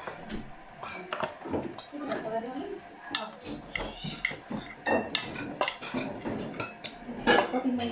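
A fork clinking and tapping against a dinner plate during a meal: a string of irregular, sharp clicks.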